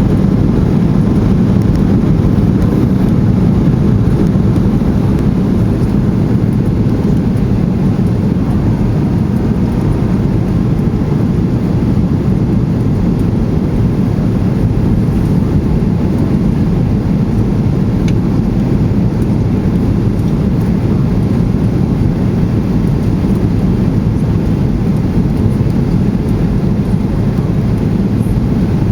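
Steady cabin noise inside a Boeing 737-800 in flight: the CFM56 jet engines and airflow heard as a loud, even, low rumble from a window seat, unchanging throughout.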